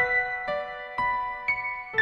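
Background piano music: single notes and chords struck about twice a second, each ringing on.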